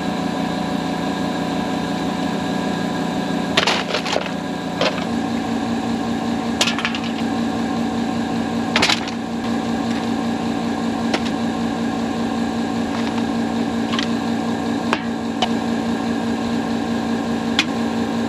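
Steady hum of an idling pickup engine, its pitch stepping up slightly about five seconds in. Over it come about ten sharp knocks and clatters as thrown trash (a plastic cup, a can, bottles) lands on and around a concrete barrel.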